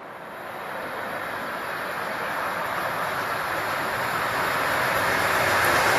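An approaching train's rushing noise, growing steadily louder as it comes on at speed.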